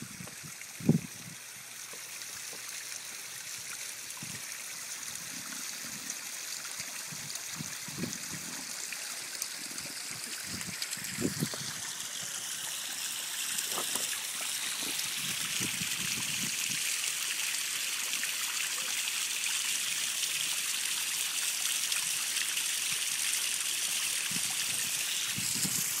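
Garden rock waterfall trickling and splashing, growing louder about halfway through. A sharp thump about a second in and a few softer knocks sound over it.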